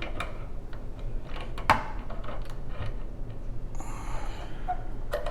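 Light clicks and knocks of a Wilson Bohannan padlock being handled and set into a vise, with one sharper click about two seconds in.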